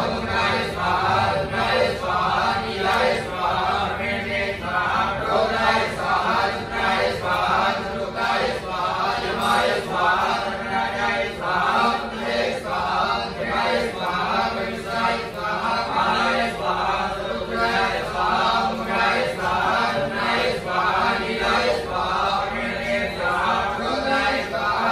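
Hindu priests chanting Vedic mantras for a homam fire ritual, an unbroken rhythmic recitation of syllables.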